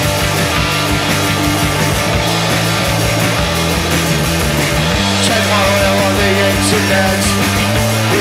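Punk rock band playing live on drum kit, bass guitar and electric guitar. About five seconds in the bass notes change and a higher wavering melody line comes in over the band.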